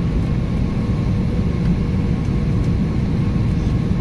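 Steady cabin noise of an Airbus A320neo on approach: a dense low rumble of airflow and engines heard from inside the cabin, with two faint steady hums above it.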